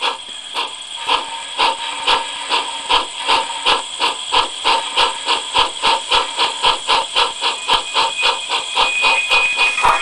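Recorded steam locomotive chuffing from a model-railway sound decoder, played through a small 20 x 35 mm oval speaker with no enclosure. The chuffs come about two a second at first and speed up steadily to about five a second, as a loco accelerating, with a thin steady high tone under them.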